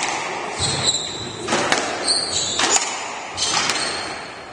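Squash rally: the ball cracks off rackets and the court walls about once a second, five sharp knocks in all, with court shoes squeaking on the wooden floor between shots.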